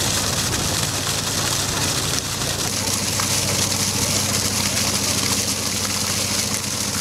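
Water gushing from a tanker truck's hose and splashing into a concrete water basin, a steady hiss and splash, with the truck's engine running steadily underneath as a low hum.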